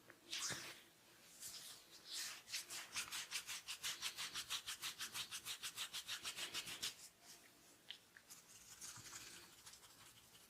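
A barber's hands rubbing briskly during a head massage: a few single strokes, then a fast, even run of about eight rubs a second for some four seconds, then softer scattered rubbing.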